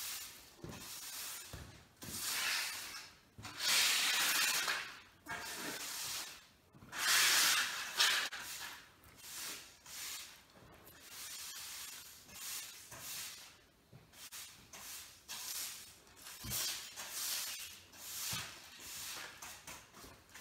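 Broom sweeping debris across a concrete floor: a few long scraping strokes first, then shorter, quicker strokes about one a second.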